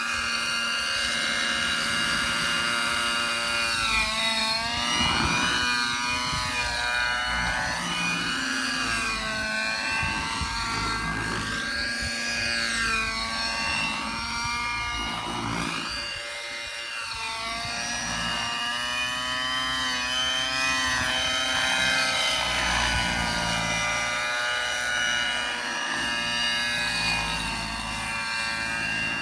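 Synergy N5C nitro RC helicopter with an OS 55HZR two-stroke glow engine flying: a steady engine and rotor whine whose pitch swoops up and down again and again as it manoeuvres.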